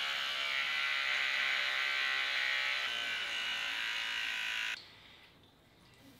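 Electric hair clippers running with a steady buzz while trimming around the jaw and sideburn; the buzz stops abruptly about five seconds in.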